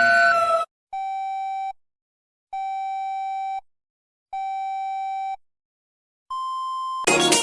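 Synthesized emergency-alert tones: a two-tone alarm cuts off about half a second in, followed by three long, evenly spaced beeps at one mid pitch and a single higher beep. Electronic dance music starts just before the end.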